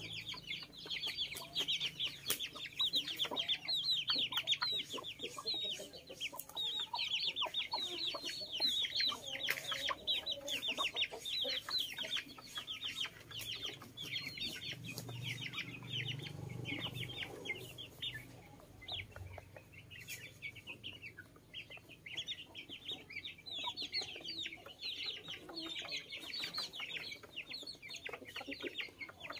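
Young chickens peeping constantly in quick, high chirps as they feed, with scattered sharp taps of beaks pecking on a metal feeder pan. The peeping thins out for a few seconds past the middle, then picks up again.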